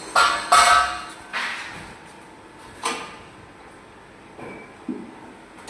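A series of sharp metal clanks and knocks from handling a tilting wet grinder, about six in all, the two loudest close together near the start, the second ringing briefly.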